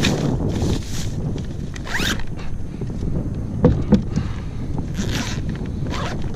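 Zipper of a soft cooler bag being pulled shut in several short strokes, with two sharp knocks about midway.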